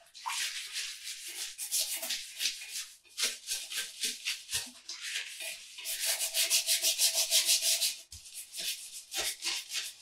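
Toilet brush scrubbing the inside of a toilet bowl: rapid, rhythmic back-and-forth bristle strokes. They pause briefly about three seconds in and again near eight seconds, and are fastest and most even from about six to eight seconds.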